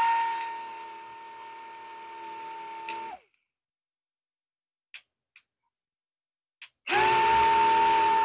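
Small propeller motors of a caged LED flying-ball toy, held in the hand, running with a steady high whine. The whine cuts off about three seconds in, a few short clicks follow, and it starts up again near the end as the toy is switched on and off from a handheld remote.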